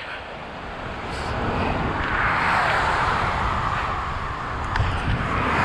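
Road traffic noise from cars on the highway: tyre and engine noise that swells as a vehicle passes about two seconds in and builds again near the end, over a low wind rumble on the microphone of a moving bicycle.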